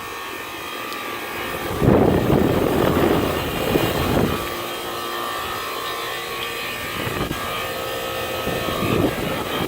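Very loud York commercial air conditioner condensing unit running: a steady hum with several level tones under the rush of its condenser fan. The rush of air swells louder a couple of seconds in.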